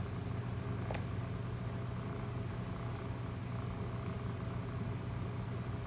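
Steady low mechanical hum with a faint click about a second in.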